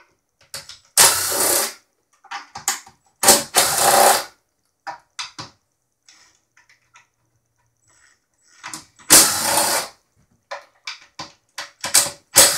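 DeWalt cordless impact driver running in short bursts of under a second, four times, backing out the case screws of a mixing console, with small clicks and knocks between the bursts.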